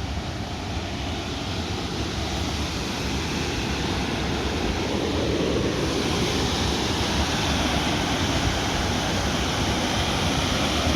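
Steady rush of a waterfall's falling water, growing gradually louder and brighter from about halfway through.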